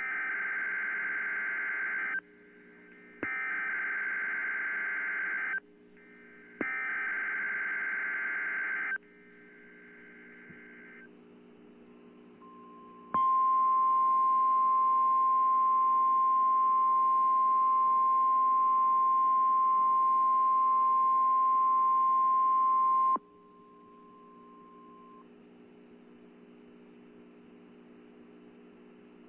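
Emergency Alert System weekly test from the National Weather Service: three bursts of the harsh digital SAME header data screech, each about two seconds long, then the steady 1050 Hz warning alarm tone held for about ten seconds. A faint steady hum lies underneath.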